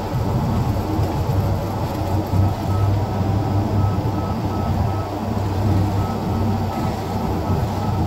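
Heavy diesel engine of a crane running steadily with a low rumble, heard from inside the operator's cab. About three seconds in, a faint warning beeper starts sounding about three times a second, pauses briefly and starts again.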